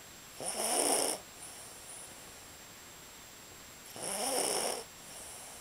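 Sleeping dog snoring: two snores, each under a second long and about three and a half seconds apart, each followed by a softer, quieter breath.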